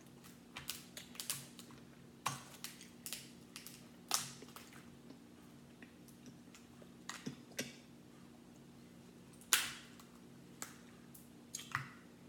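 Crab leg shells cracked and snapped apart by hand, a run of irregular sharp cracks with the loudest about nine and a half seconds in, over a steady low hum.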